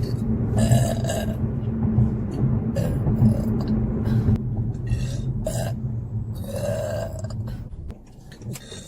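A woman's long, low, rough burp, held for about seven and a half seconds before it cuts off.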